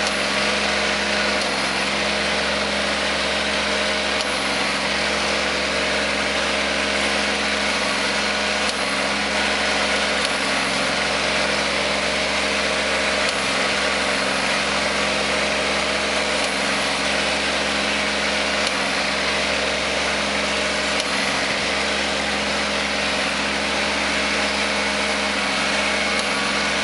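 Kubota compact tractor's diesel engine running steadily under load as it pulls a ridging plough through the soil.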